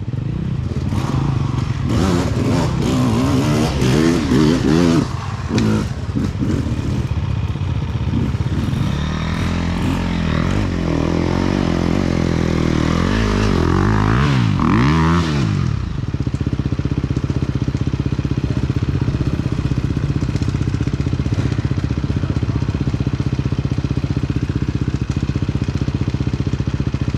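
Dirt bike engine revving up and down under changing throttle for about the first sixteen seconds, with some clatter, then settling to a steady idle.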